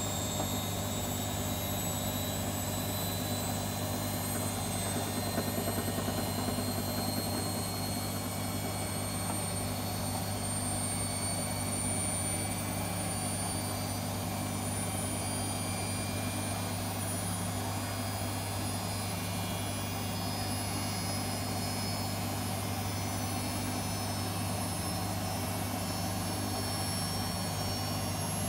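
Bosch 7 kg front-loading washing machine running in suds lock: excess foam holds it back from its full spin. Its motor and drum give a steady low hum with a faint high whine that slowly rises in pitch.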